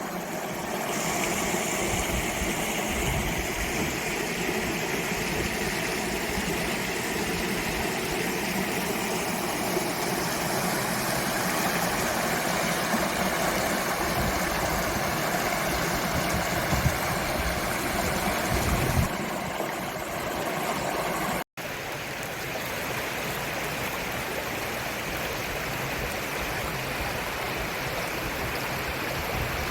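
Clear mountain valley stream rushing steadily. The sound cuts out for a split second about two-thirds of the way through, then carries on.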